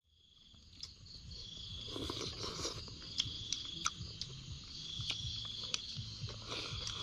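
Night insects trilling in repeated high bursts, with a few sharp clicks of chopsticks against a ceramic rice bowl as someone eats.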